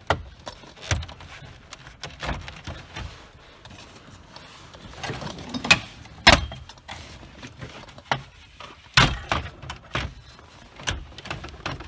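Plastic dash trim being pried and popped loose: scattered sharp clicks, snaps and knocks of trim clips and panels, the loudest around six and nine seconds in.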